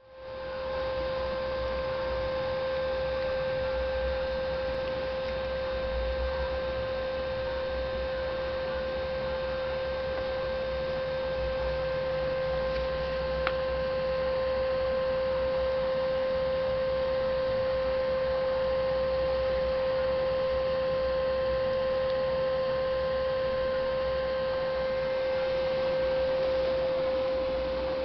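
A steady hum on one unchanging pitch with fainter overtones above it, over a low rumble, with a single short click about halfway through.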